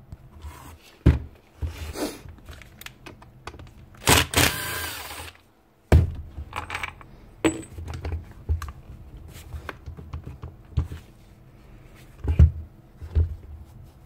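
Handling noise from an old blue Ryobi ERT-1150V router being turned over on a workbench: scattered knocks, clicks and thunks of its body and base against the bench, with a longer scrape about four seconds in and a sharper knock near the end.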